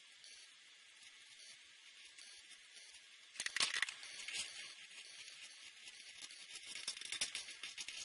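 Marker pens scratching and rubbing on paper. About three seconds in, quick uneven strokes start over a faint steady hiss and keep going.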